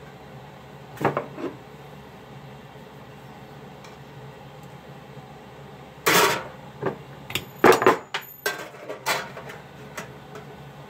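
Metal hand tools and brass rod clinking and clanking as pliers are picked up and used to bend and fit a small brass railing. Two light knocks about a second in, then a quick run of sharp clanks, some with a brief metallic ring, from about six to nine seconds.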